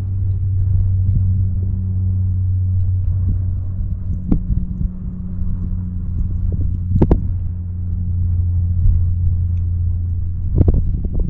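Steady low mechanical hum, with three short sharp knocks about four, seven and ten and a half seconds in.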